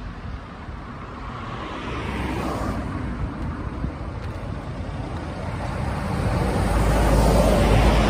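Road traffic passing, a tyre-and-engine rush that swells about two seconds in and again louder near the end, with wind buffeting the microphone.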